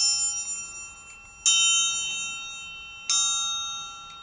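Hand-held metal triangle struck three times with a metal beater, about a second and a half apart, each stroke ringing out high and slowly fading.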